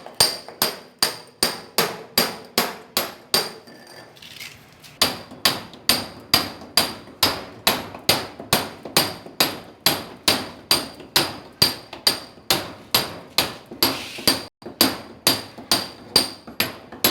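Hand sledgehammer (marreta) beating on a steel chisel in steady, rapid blows, about three a second, each with a short metallic ring. The blows stop for about a second around four seconds in, then carry on at the same pace.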